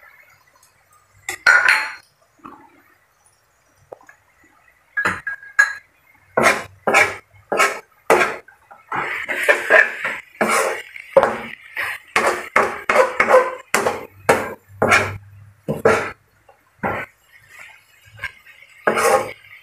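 A spatula scraping and knocking against a wok as cabbage and vegetables are stir-fried, in quick strokes about two a second through the middle, with a few single knocks before and after.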